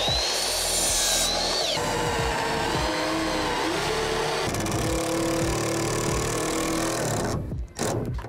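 Ryobi miter saw spinning up with a rising whine and cutting through a pine 2x4. About two seconds in, a cordless drill with a countersink bit runs into the pine board, and it stops shortly before the end.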